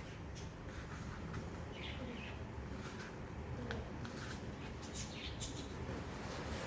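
Quiet rustling and creasing of a sheet of A4 paper as it is folded down by hand, with a few faint bird chirps in the background.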